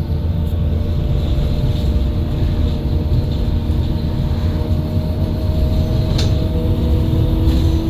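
Inside a Menarinibus Citymood 12 CNG city bus on the move: its FPT Cursor 9 natural-gas engine and ZF Ecolife automatic gearbox running with a steady low drone and a faint whine that slowly rises in pitch. A short click about six seconds in.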